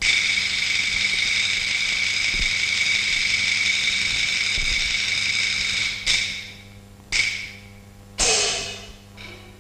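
Chinese opera percussion: a sustained cymbal roll for about six seconds, cut off by three separate struck crashes about a second apart, the last a gong whose pitch drops as it rings.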